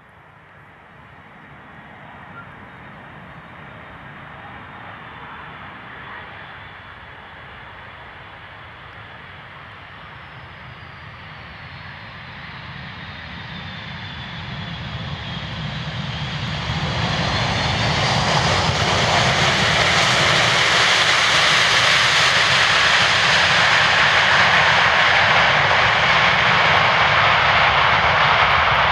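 Boeing 747-200 freighter's four Rolls-Royce RB211 turbofans on approach and landing: a steady jet rush with a falling whine near the middle, swelling to a loud, steady roar as the jet touches down and rolls out.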